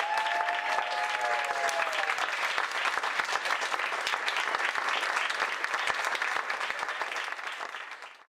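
A small audience clapping, with a voice calling out over the applause in the first two seconds; the clapping fades out near the end.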